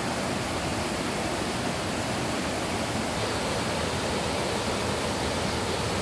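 Mountain stream rushing over a small waterfall and rocky cascades: a steady, even rush of water.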